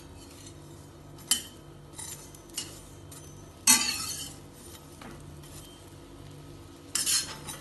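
Metal spatula clinking and scraping against a stainless steel frying pan while turning slices of bread toasting in butter: a few separate sharp clinks, the loudest about halfway through with a short ring, and a quick cluster near the end, over a faint steady hum.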